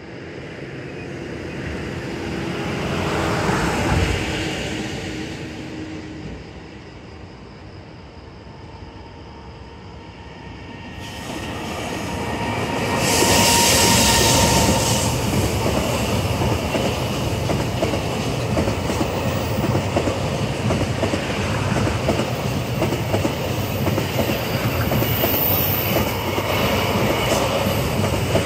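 Electric freight locomotive approaching and passing close by, loudest about halfway through, followed by a long train of container wagons rolling past with a steady clickety-clack of wheels over the rail joints.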